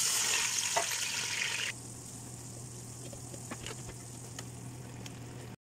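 Water poured into hot oil and spices in a cooking pot, giving a loud hiss for nearly two seconds. It then settles to a quieter steady bubbling with a few sharp pops as the pot boils, over a low steady hum, and cuts off suddenly near the end.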